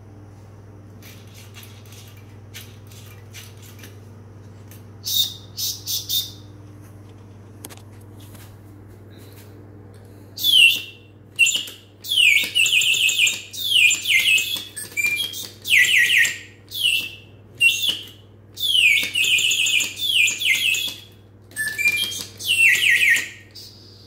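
Automaton bird whistle, its piston driven by a wooden cam-and-lever mechanism, chirping in a long run of short, loud calls that each slide down in pitch, like a bird's warble. Before that come light mechanical clicks and a few brief high toots, and a faint steady hum runs underneath.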